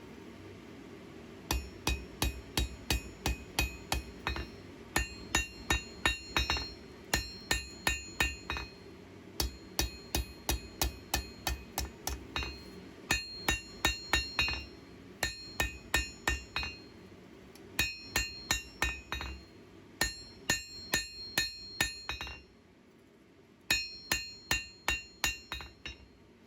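A hammer striking steel on an anvil while hand forging a knife blade. The blows come in runs of about three to four a second, each with a bright metallic ring, with short pauses between runs. A steady low rumble underneath cuts off about 22 seconds in.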